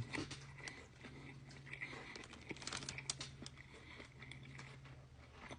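Someone chewing a sandwich: faint, scattered mouth clicks and soft crinkling.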